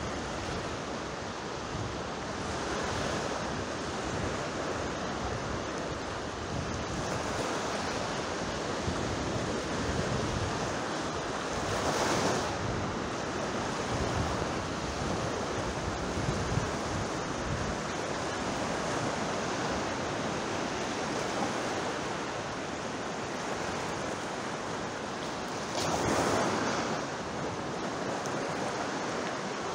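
Sea waves washing ashore: a steady rush of surf, with two louder waves breaking about twelve seconds in and again near the end.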